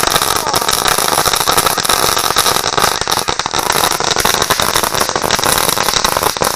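A Lesli firecracker strip going off on the ground in a rapid, unbroken run of sharp bangs.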